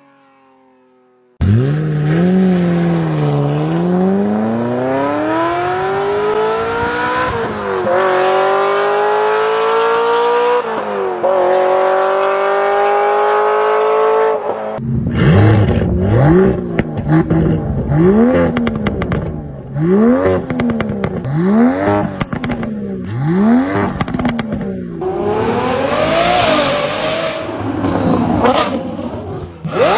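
Sports car engine accelerating hard under load, its pitch climbing and dropping at two upshifts. It then gives a run of sharp throttle blips, about one a second, followed by uneven revving.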